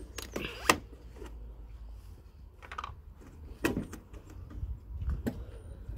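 Hard plastic clicks and knocks as the pulled-out headlight assembly is handled and worked at its back, with the sharpest click about a second in, over a low rumble.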